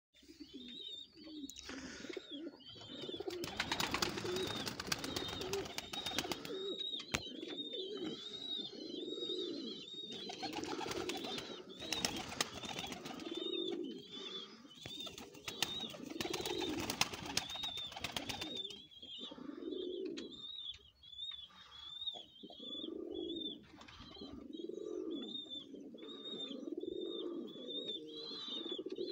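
A flock of lotan pigeons cooing, with low swelling coos about every two seconds. A rapid, high, repeated chirping runs alongside.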